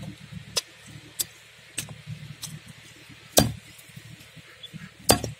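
Heavy cleaver chopping through raw fish pieces onto a wooden block, about six separate strikes at an uneven pace, the loudest about three and a half seconds in.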